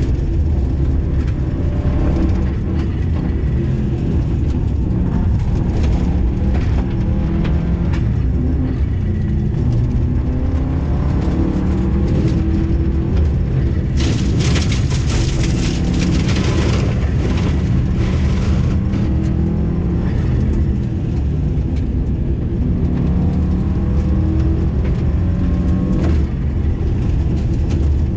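Rally car engine heard from inside the cabin, revving up and falling back again and again as it is driven hard along an icy gravel stage, with a steady rush of tyre and road noise and scattered clicks of stones and ice on the car. About halfway through a louder hiss rushes in for a few seconds.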